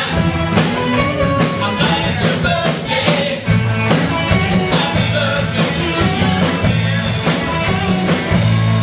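Rock band playing live: drums with a steady beat under electric guitars and bass. Near the end the band lands on one chord and holds it ringing.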